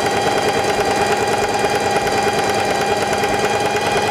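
Singer 4411 Heavy Duty sewing machine running at a steady speed, test-sewing a straight stitch through fabric: a steady motor hum with a fast, even stitching rhythm.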